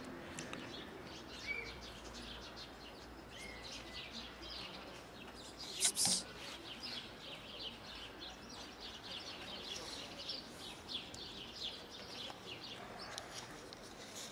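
Small birds chirping and twittering, a rapid run of short high chirps that goes on through most of the stretch. About six seconds in there is a sudden, sharp, loud burst lasting under half a second.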